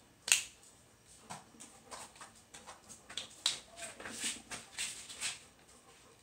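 Small plastic LEGO figure parts clicking and rattling as they are handled and pressed together. A sharp snap comes about a third of a second in, then a run of lighter clicks that stops shortly before the end.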